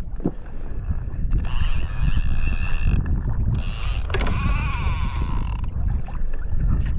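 Spinning fishing reel whirring in two bursts, a second and a half and then about two seconds long, as line runs off it or is wound in, with a fish on or checked for, over a steady rumble of wind and water on the kayak.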